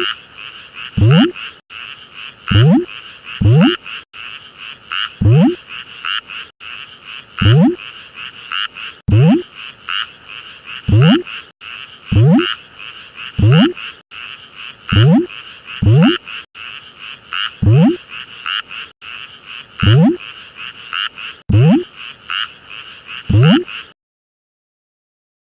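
Frogs calling: loud, low croaks that rise in pitch, one about every one and a half seconds, over a steady chorus of higher, rapidly pulsing frog calls. It all stops suddenly about a second and a half before the end.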